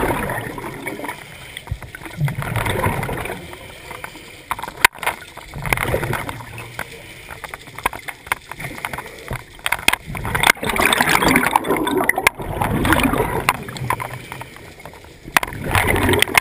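Underwater scuba breathing through a regulator: exhaled air bubbling and gurgling in surges every few seconds, with quieter gaps between breaths.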